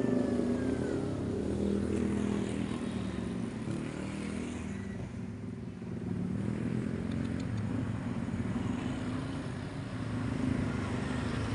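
A motor vehicle engine running steadily off-screen, a low hum that eases a little around the middle.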